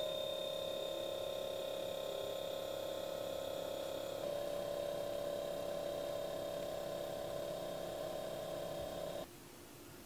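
Alpicool portable compressor fridge-freezer running: its compressor and cooling fan make a steady hum of several fixed tones. The tone shifts slightly about four seconds in, and the sound drops off sharply near the end.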